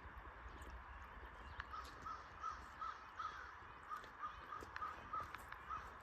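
A bird calling in a quick run of short, evenly repeated notes, about three a second, starting a couple of seconds in, over a steady rushing hiss and low wind rumble.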